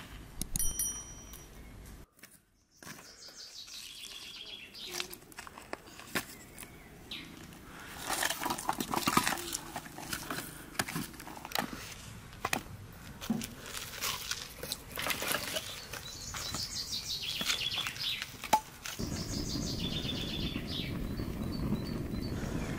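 Small birds chirping repeatedly in the background over scattered clinks, knocks and handling noises of cooking, with a ringing clink in the first second. A steady low rumble comes in for the last few seconds.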